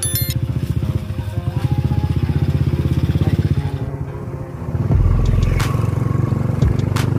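Motorcycle engine running with rapid, even firing pulses as it rides up close. After a cut about four seconds in, a heavier steady low rumble of a vehicle driving along a road.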